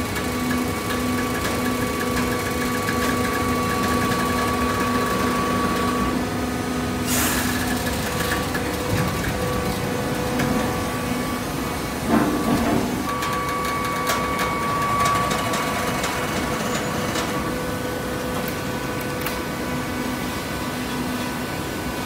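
Horizontal hydraulic baler running with a steady mechanical hum, with a short rushing noise about seven seconds in and a louder knock around twelve seconds in.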